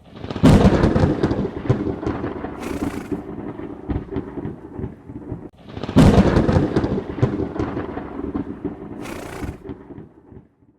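Two rolling thunderclaps, one about half a second in and the other about six seconds in. Each starts suddenly, then rumbles and crackles away over several seconds.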